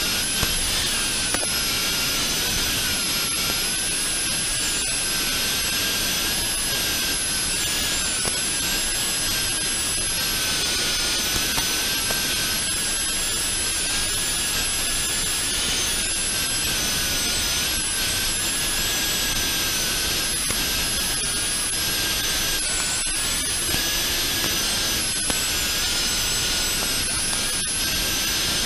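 Small FPV quadcopter's motors whining thinly and wavering in pitch with the throttle, under a steady hiss of analog radio static.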